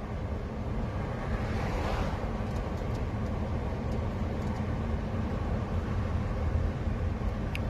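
Road and engine noise inside a moving box van's cab: a steady low rumble with tyre hiss that swells briefly about two seconds in.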